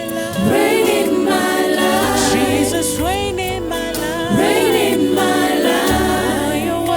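Gospel worship music: a choir singing with sustained instrumental accompaniment.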